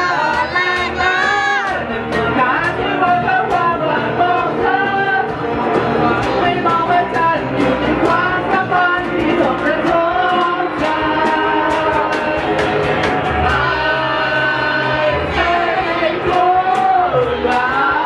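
Live band music in Thai: electric guitars and bass over a steady beat, with a singing voice carrying the tune.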